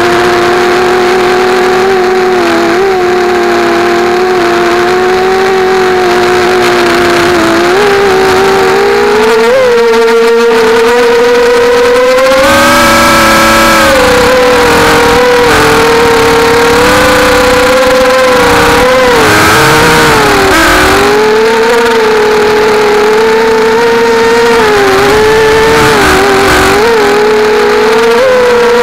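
Brushless motors and propellers of a 250-size FPV mini quadcopter running loudly, heard from its onboard camera, the pitch rising and falling with the throttle. About ten to twelve seconds in it climbs higher, with a rush of air noise.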